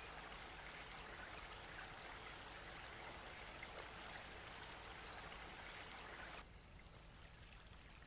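Faint, steady hiss of flowing river water. It drops quieter and duller about six seconds in.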